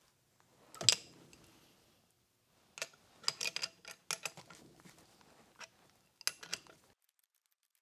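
Metal clinks and clicks of a wrench working the forcing screw of a three-jaw gear puller as it draws a bearing retainer off a tool and cutter grinder spindle. One sharp clank about a second in, then irregular bursts of clicking that stop about seven seconds in.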